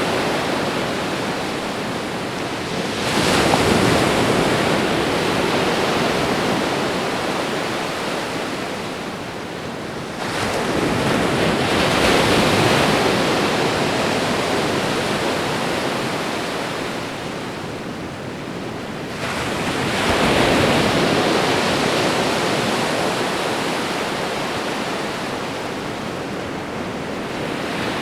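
Ocean waves breaking on a shore, three in turn, each coming in with a sudden rise and then slowly fading as the water washes back.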